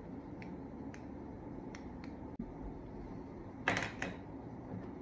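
Small clicks and handling noises of objects on a tabletop over a low steady background, with a louder short clatter a little past halfway and a brief gap in the sound just before it.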